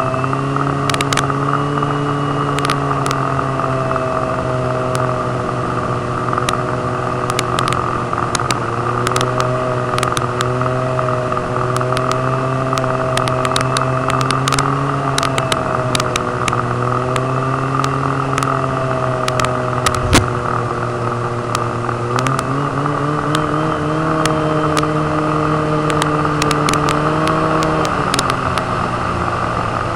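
Snowmobile engine running steadily under way, its pitch wavering slightly, rising about three-quarters of the way through and dropping back near the end. Scattered sharp clicks run throughout, with one sharper knock about two-thirds of the way through.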